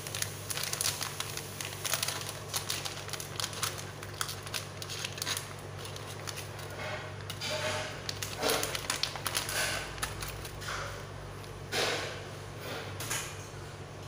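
Foil seasoning sachet crinkling and rustling as it is handled and shaken out over a stone mortar: dense fine crackles at first, then a few louder swishes. A steady low hum runs underneath.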